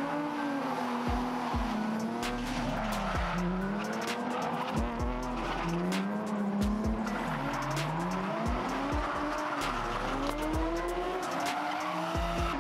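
Drift cars, a Nissan 350Z and a BMW, in a tandem slide: engines revving up and down over and over, with tyres squealing and many sharp cracks.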